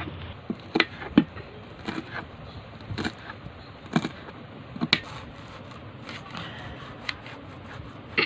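Kitchen knife chopping banana-flower florets on a cutting board: sharp, short knocks at an irregular pace, roughly one a second.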